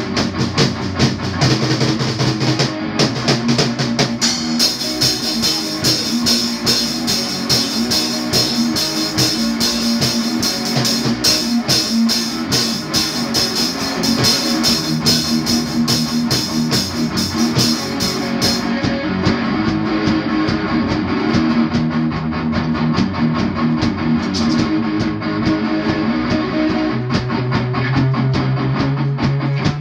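Electric guitar through an amplifier, played together with a drum kit in a loose jam: held guitar notes over steady drumming. Cymbals ring heavily from about four seconds in until about eighteen seconds, then the drumming gets sparser.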